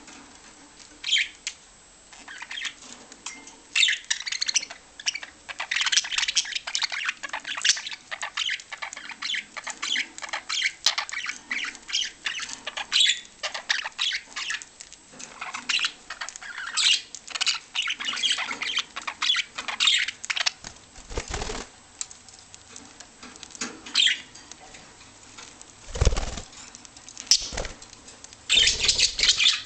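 Pet budgerigars chirping and chattering in quick, busy runs of short high notes, with wings flapping. A few dull low thumps come in the last third.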